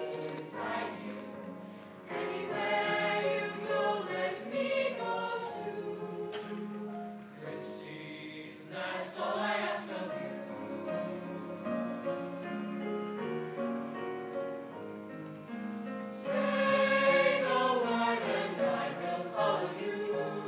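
Choir singing. It swells louder about two seconds in and again near the end.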